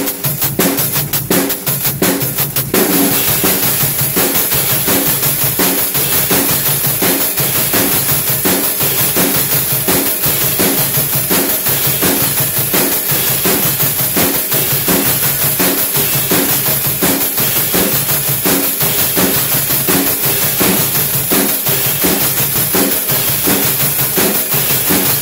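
Robot drummer's hi-hat played by metal stick and pedal, ticking in time with a steady drum-kit beat. About three seconds in, the cymbal turns into a continuous hissy wash over the beat.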